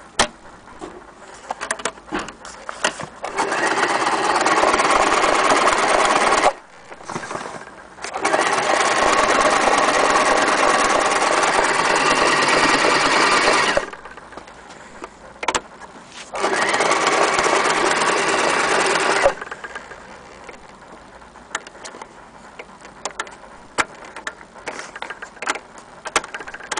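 Frister & Rossmann Jaguar electric sewing machine running at a steady speed in three runs of a few seconds each, the longest about six seconds. Small clicks and knocks come in the gaps between the runs.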